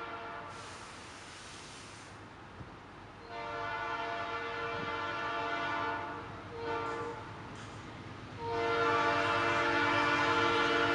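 Diesel freight locomotive's multi-chime air horn sounding the grade-crossing signal as the train approaches: the tail of one long blast, then another long blast, a short one, and a final long blast starting about two-thirds of the way through, the loudest. A brief hiss is heard about a second in.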